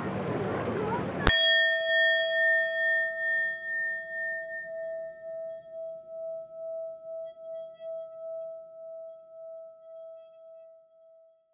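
Beach ambience of children's voices cuts off suddenly about a second in, and a single struck metal chime like a singing bowl rings out. Its tone wobbles as it slowly fades over about ten seconds.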